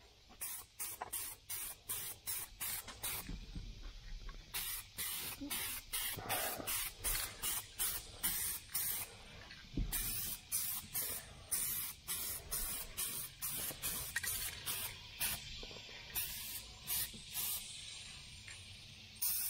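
Aerosol spray can of Color Coat flexible coating being sprayed in short hissing bursts, about two a second, with a brief pause a few seconds in.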